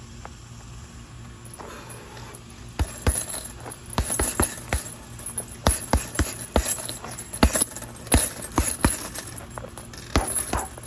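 Punches landing on a Venum heavy bag in quick combinations: a string of sharp smacks that starts about three seconds in.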